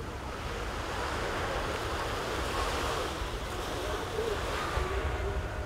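Wind buffeting the microphone with a low rumble, over the steady wash of sea water at the shore.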